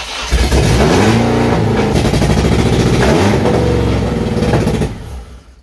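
Honda K24 four-cylinder engine in an AE86 Corolla firing up and running on its first start, fed by an aerosol sprayed into the intake. The revs rise twice, then it dies out about five seconds in.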